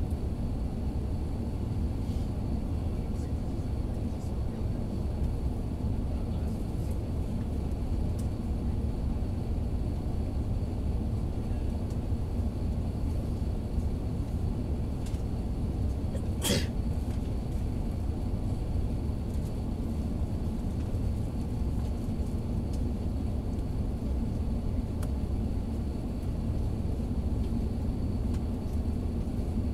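Steady low rumble of a jet airliner's cabin noise on its landing approach, with a faint steady high whine. One brief sharp sound cuts through about halfway.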